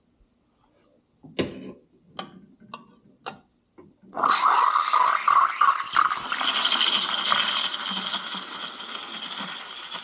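A few light clinks and knocks, then about four seconds in the steam wand of a Quickmill Pippa single-boiler espresso machine opens. It hisses steadily into milk in a stainless steel pitcher, steaming the milk.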